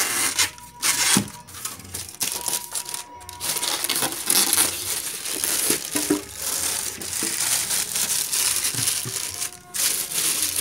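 Clear plastic bag crinkling and rustling irregularly as it is handled around a boxed voltage stabilizer, with a few light knocks of the unit and packing.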